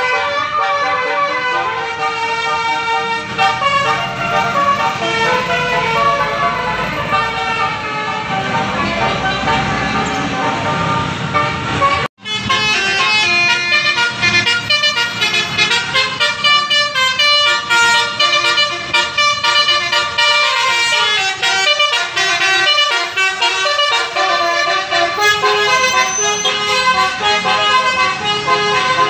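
Basuri 'telolet' multi-tone vehicle horns playing short melodic tunes, several horns sounding back and forth. The sound cuts out briefly about twelve seconds in, then the horn tunes carry on.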